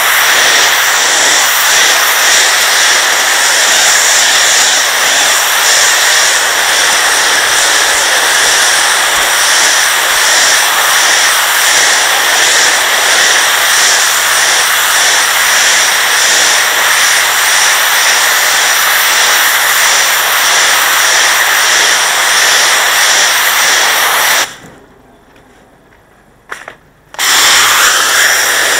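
Pressure washer jet spraying water onto porcelain patio slabs to strip built-up grime, a loud steady hiss. It stops for about three seconds near the end, then starts again.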